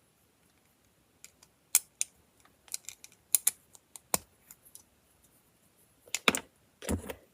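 Plastic LEGO pieces clicking and tapping as they are handled: scattered sharp clicks at an uneven pace, with a small cluster near the end.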